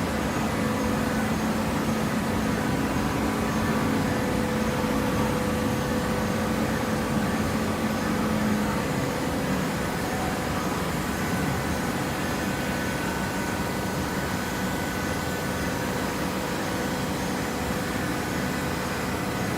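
Hydraulic fiber baler running: a steady machine hum with several steady tones, the lowest of which drops away about halfway through.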